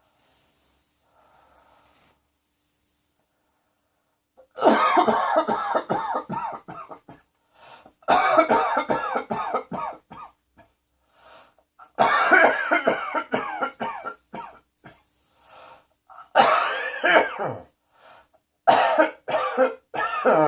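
A person coughing in fits: after a faint breath and a quiet start, about five bouts of coughs in quick succession begin some four and a half seconds in, each bout lasting a couple of seconds.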